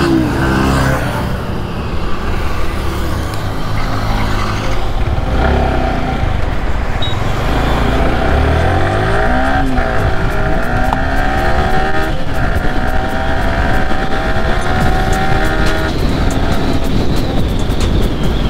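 Motorcycle engine under way, its pitch rising and falling as it accelerates and eases off through the gears, with a steady rush of wind and road noise.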